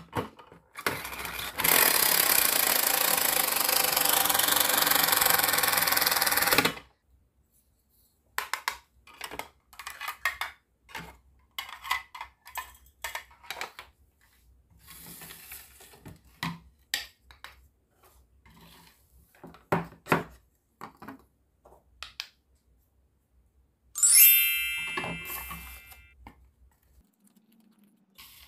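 Battery-powered toy kitchen appliances: a loud steady electronic buzzing sound effect for about five seconds, then light clicks and taps of plastic toy food and dishes being handled. About 24 seconds in, an electronic chime rings out and fades, a toy appliance's done signal.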